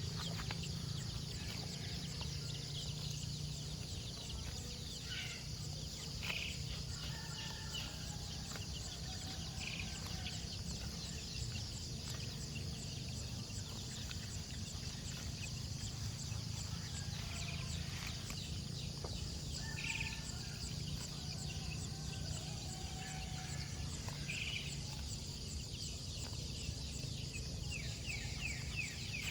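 Outdoor rural ambience: a steady high-pitched insect chorus over a low rumble, with short bird or poultry calls now and then.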